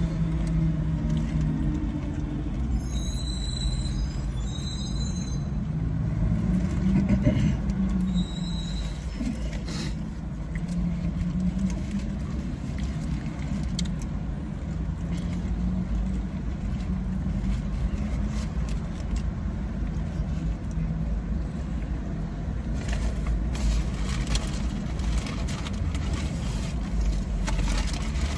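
Steady low rumble of a car's interior with the engine running, with a few short high chirps about three to five seconds in.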